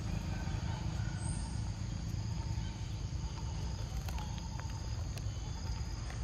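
Outdoor ambience: a steady low rumble under a faint, high, steady insect drone, with a few soft clicks about four seconds in.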